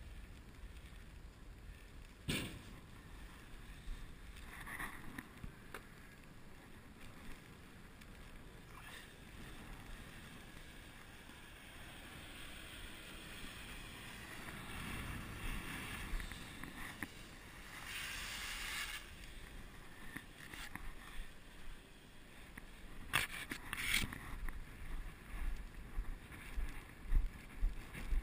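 Wind rumbling on the microphone, with scattered rustles and knocks from gloved hands handling a paper ticket and cloth grain-sample bags. The wind buffeting grows stronger and choppier near the end.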